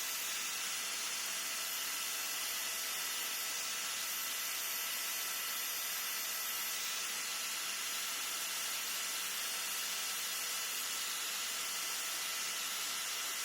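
Angle grinder running steadily against the edge of a brake disc, putting a chamfer on it: a continuous grinding hiss with a steady motor whine.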